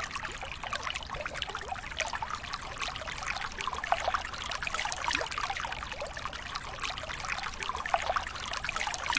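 Underwater bubbling and crackling: a dense, steady fizz of small pops and short blips.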